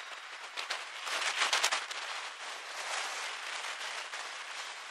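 Slow-moving freight train of box wagons behind a Class 66 diesel locomotive: a steady rushing noise, with a burst of rapid crackling clicks about a second in.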